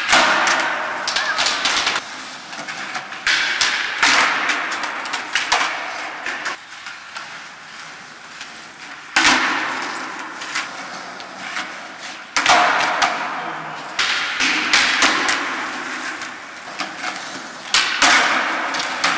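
Skateboards rolling on a smooth concrete floor, with about seven sharp clacks of boards popping and landing flatground flip tricks, each one echoing off the concrete walls and ceiling.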